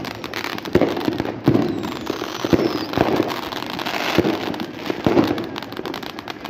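Fireworks and firecrackers going off in a dense, irregular string of crackles and sharp bangs, with a faint falling whistle about two seconds in.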